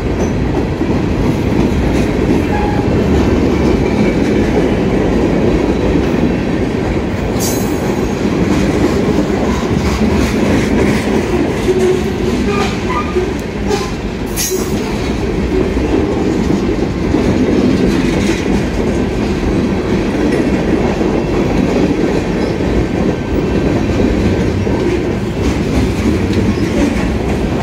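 Freight cars of a long, slow-moving CN freight train rolling past close by: a steady rumble of steel wheels on rail. Twice, about a quarter and about half way through, there is a brief sharp high metallic sound.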